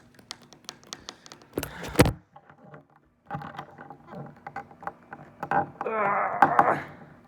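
Plastic toy pieces clicking and knocking as they are handled, with a louder clatter about two seconds in. A short vocal sound comes near the end.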